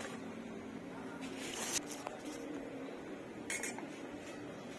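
Kitchen dishes handled: a few short clinks and scrapes, the longest about a second and a half in and a briefer one near the end, over a faint steady hiss.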